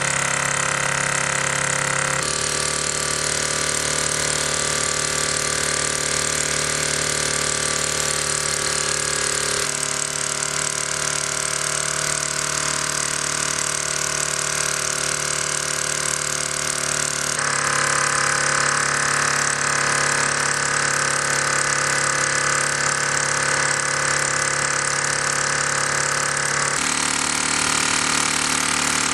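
Luton Bowman overtype toy steam engine running steadily on live steam, a steady mechanical purr.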